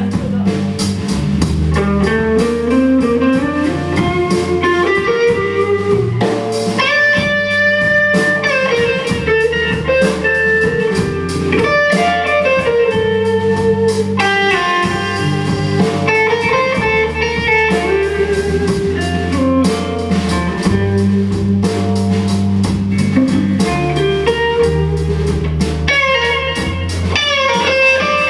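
Live guitar performance: a guitar plays a bluesy lead melody of held and sliding notes over a sustained low bass accompaniment.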